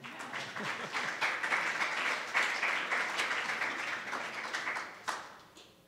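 An audience applauding, a dense patter of clapping that tails off and stops about five seconds in, ending on one last sharp clap.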